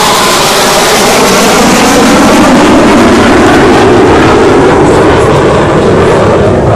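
Panavia Tornado jet with its twin jet engines making a very loud low pass, the engine pitch falling as it goes by and then settling into a steady jet noise.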